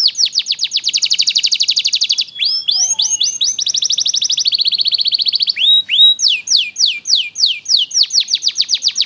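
Domestic canary singing nonstop in fast trills, rapid runs of repeated downward-sweeping notes whose speed changes from run to run. A few slower, separate upward-sliding notes break in at about two and a half seconds and again around six seconds.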